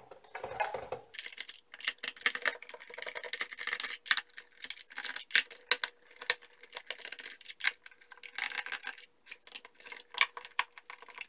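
Screwdriver backing screws out of a clock radio's plastic case, with many quick, irregular clicks from about a second in: a loosened screw topping out, its thread skipping in the plastic.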